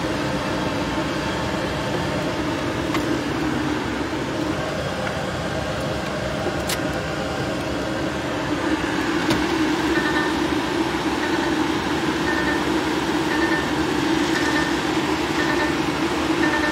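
Truck engine running steadily at low speed, heard from inside the cab. Over the second half a faint high beep repeats about once a second: the truck's reversing alarm as it backs up.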